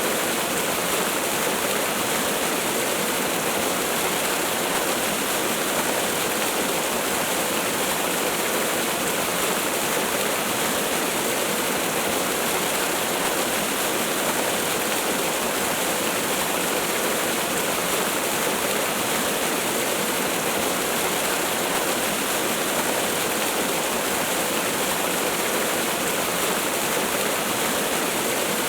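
Waterfall rushing: a steady, unbroken hiss of falling water with little deep rumble and no change in level.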